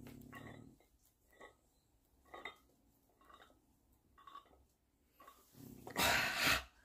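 Faint short sounds about once a second as the dumbbell is lifted rep by rep, then a loud, heavy exhale near the end as the set of dumbbell curls is finished.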